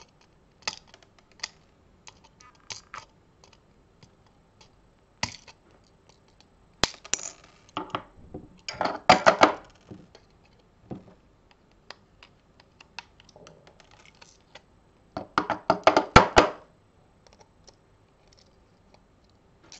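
Small 3D-printed plastic parts clicking and clattering against a tabletop and against each other, with scattered sharp snips and clicks of flush cutters at print supports. The loudest moments are two bursts of rapid clattering, about nine seconds in and again around sixteen seconds.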